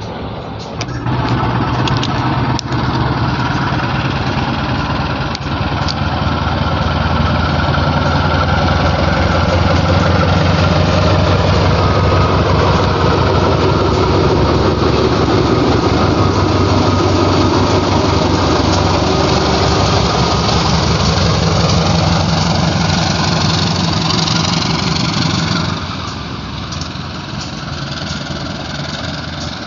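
A diesel-hauled train running close by: a steady low locomotive engine drone under loud wheel-on-rail noise with a few sharp clicks. It starts about a second in and drops off sharply about 26 seconds in.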